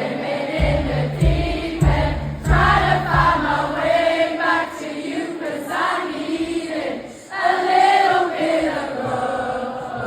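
Concert crowd singing along in chorus, with acoustic guitar strums under the voices in the first few seconds.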